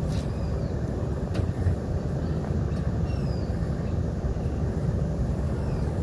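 Steady low rumble of background noise, with a few faint, short down-slurred bird chirps over it.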